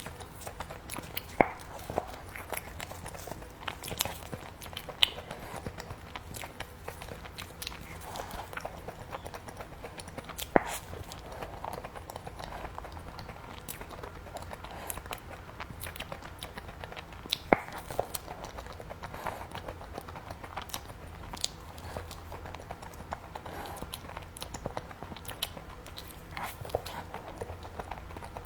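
Close-miked eating of a cookies-and-cream treat: chewing and biting, with scattered sharp crunches and mouth clicks every second or two.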